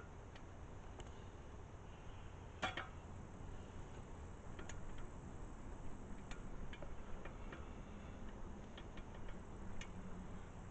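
Scattered faint light clicks and ticks over a low, steady background rumble, with one sharper click about two and a half seconds in.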